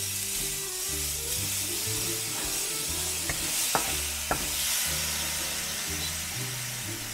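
Flying fish roe sizzling and steaming in a hot nonstick frying pan while being stirred with a wooden spatula, with two sharp clicks of the spatula against the pan about halfway through.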